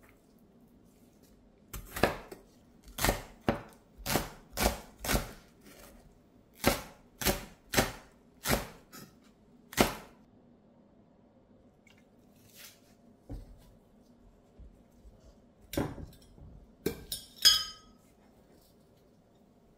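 Kitchen knife slicing vegetables, knocking down on a wooden board about a dozen times at one to two strokes a second, then a pause. Near the end come a few more knocks and a ringing clink of a ceramic bowl.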